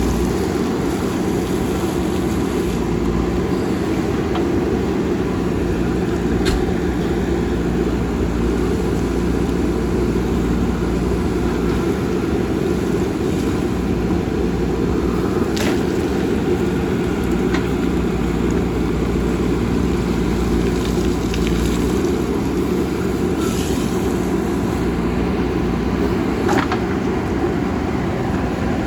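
JCB backhoe loader's diesel engine running steadily under work, with a few sharp knocks or clanks scattered through.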